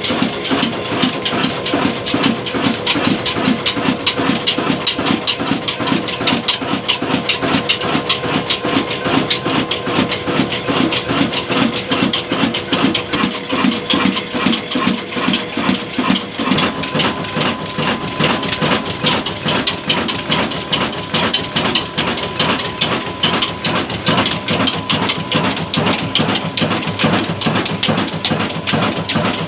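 22 HP Hassan company 'desi black engine', a slow-speed single-cylinder diesel rated at 275 RPM, running steadily with an even, rapid beat.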